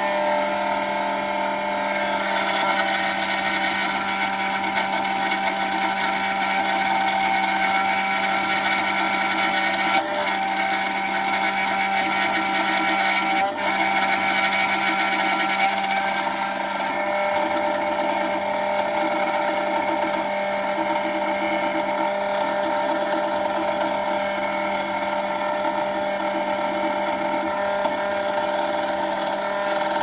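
Sec-9 PRO key cutting machine running steadily with a whine as its cutter mills a high-security car-key blade, with a couple of small knocks partway through.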